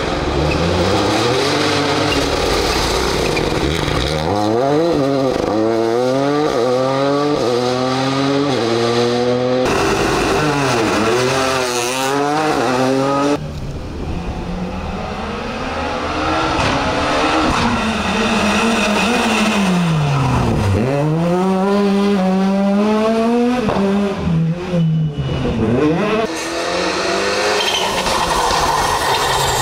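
Rally cars' engines running hard: the pitch climbs in steps through the gears, drops back on lifts and downshifts, then climbs again. The sound switches abruptly a few times from one car to the next.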